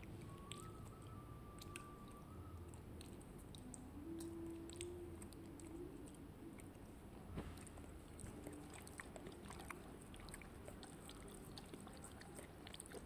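Mostly near silence: faint room tone with scattered light clicks, and a beagle's faint, thin whine lasting about two seconds near the start, with a lower, shorter one a few seconds later.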